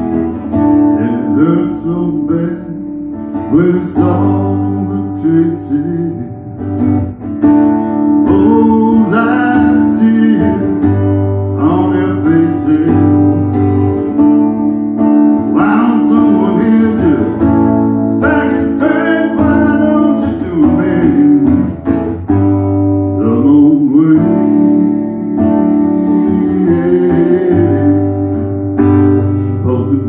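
Acoustic guitar strummed in a fast, loose solo performance, with a man singing through parts of it.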